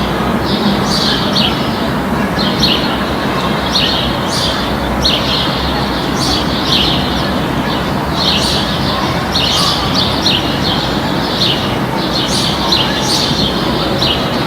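Small birds chirping over and over in short high calls, often less than a second apart, over a steady low background rumble of outdoor ambience.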